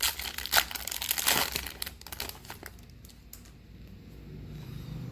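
Foil trading-card pack wrapper crinkling and tearing as it is opened, with sharp crackles for the first two seconds or so, then dying down to faint rustling.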